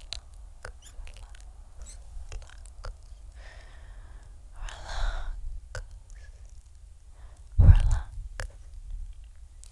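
Scattered sharp clicks, typical of a computer mouse, with breathy exhales close to a microphone about three and a half and five seconds in, and a heavy low thump just before eight seconds in, over a steady low hum.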